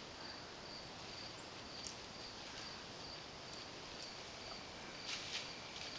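Outdoor ambience of insects chirping in a steady high repeating pulse, with a short burst of noise about five seconds in.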